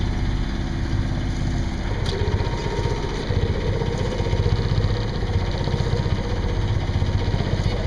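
A sailboat's auxiliary engine running steadily at low speed, in gear as the boat motors out of its slip; an even, low, pulsing engine rumble.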